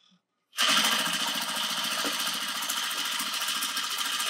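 Sewing machine running steadily at an even speed, stitching a seam; it starts about half a second in and stops right at the end.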